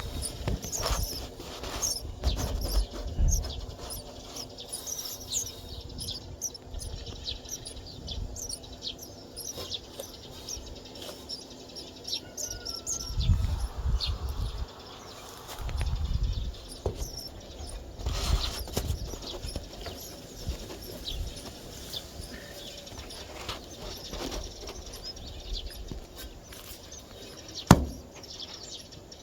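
Sparrows chirping in many short, high calls, on and off throughout. Low rumbling bursts come and go, and there is one sharp knock near the end.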